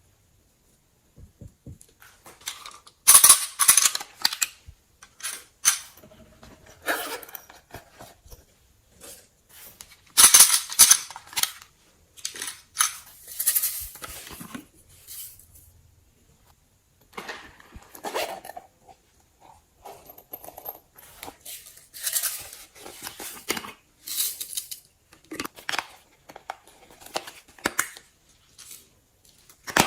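Slime being squeezed and worked by hand close to the microphone: irregular bursts of sticky crackling and popping, each about a second long, with quieter squishing between them.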